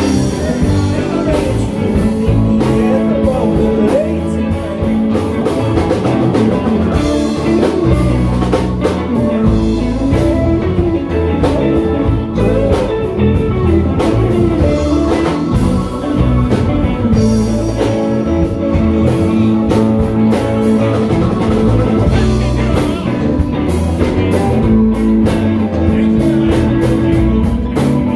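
Live band playing a song, with guitar over a drum kit.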